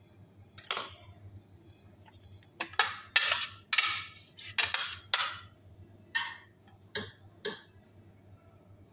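Small kitchen knife scraping into a baked potato and clinking against a ceramic plate. About ten short scrapes and clinks over seven seconds, most of them clustered in the middle.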